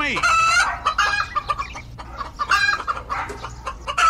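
Chickens clucking: several short, pitched clucking calls in a row.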